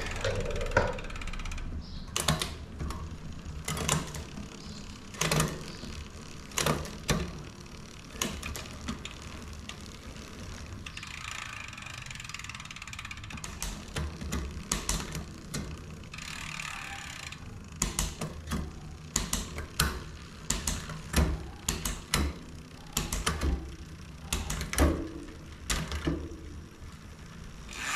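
A bicycle drivetrain is turned by hand while being shifted through the gears, its chain freshly lubricated. The chain runs over the rear cassette, broken by many irregular sharp clicks from the shifting and the ratcheting rear hub.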